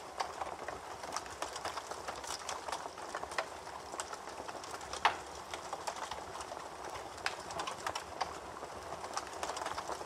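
Crackling fire sound effect: irregular small pops and clicks over a soft hiss, with one louder pop about five seconds in.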